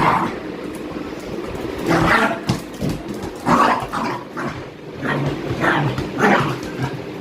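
Jack Russell terrier making short vocal bursts, about five in all, as it plays.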